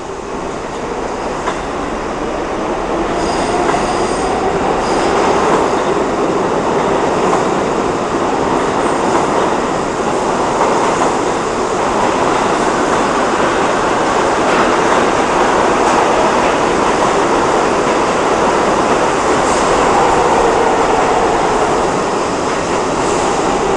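R62A subway train of the 7 express accelerating out of the station past the platform. The run of wheels on rails and car running gear grows louder over the first few seconds and then holds steady. Short high wheel squeals come in a few seconds in and again near the end.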